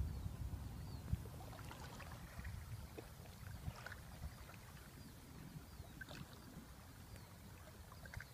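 Faint lake water lapping, with a low rumble that fades after the first second and a few faint, short high chirps.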